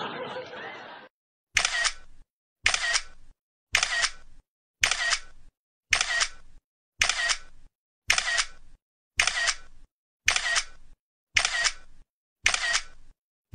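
A short, sharp sound repeated evenly about once a second, roughly a dozen times, with silence between each; a noisier sound before it cuts off about a second in.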